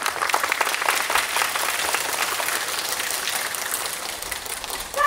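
Audience applauding, a dense steady clatter of many hands clapping, with a short high-pitched call right at the end.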